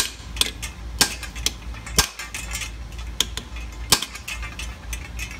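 Hammer blows on a steel extension, driving an Irwin bolt-extractor socket down onto a broken cylinder-head stud of a Porsche 911 SC engine: a string of sharp metallic clanks at uneven intervals, about one or two a second.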